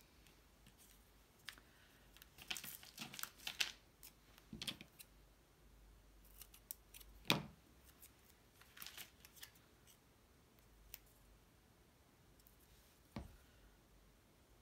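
Cardstock pieces and foam tape being handled on a cutting mat: scattered short, crisp paper rustles and clicks in small clusters, the sharpest a little past seven seconds in.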